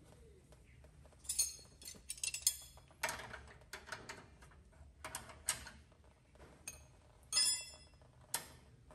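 Steel wrenches clinking and ringing against the fuel filter's line fittings as they are set on and turned, one wrench holding the fitting while the other loosens it. Several sharp metallic clinks come at irregular intervals, the loudest about two and a half seconds in and again past seven seconds.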